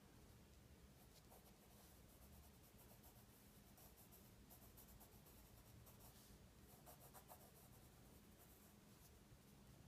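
Faint scratching of a pencil on drawing paper in short, irregular strokes, over a low steady hum.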